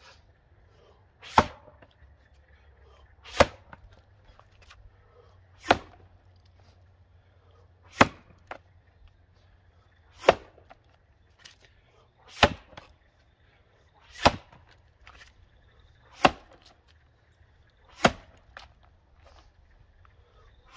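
Axe blows biting into a wet, thawed-out white pine log in an underhand chop, sharp hits at a steady pace of about one every two seconds, about ten in all. Fainter knocks come between some of the blows.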